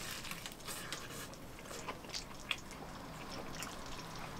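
Scattered small crackles and wet clicks from eating and handling a crisp-fried chicken drumstick, with one sharper tick about two and a half seconds in.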